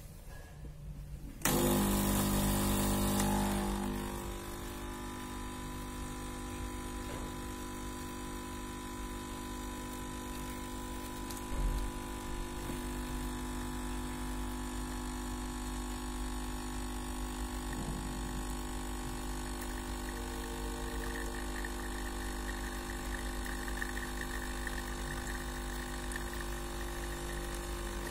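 Espresso machine pump switching on about a second and a half in, loudest for the first couple of seconds, then settling to a steady hum as it pushes water through the coffee puck during extraction.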